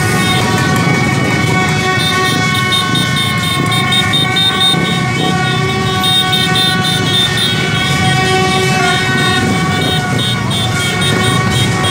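Street crowd on motorbikes celebrating, with many horns and toy trumpets sounding continuously over the running motorbike engines and crowd noise.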